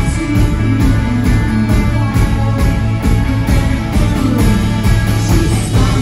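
Live rock band playing: electric guitar, electric bass and a drum kit with a steady beat.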